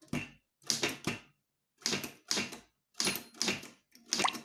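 Typewriter keys being struck one at a time as the word "children" is typed. About eight sharp clacks come at an uneven pace of roughly two a second.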